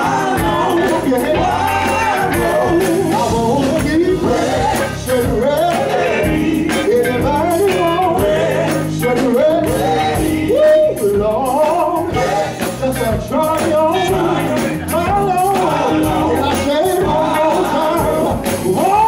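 Live gospel song: male singers on microphones, lead voice with backing voices, over a band of electric bass, drum kit and keyboard.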